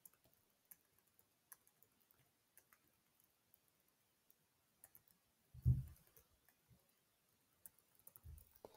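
Faint, sparse computer-keyboard keystrokes as a word is typed, single clicks spaced out rather than a fast run. A short low thud a little past halfway is the loudest sound.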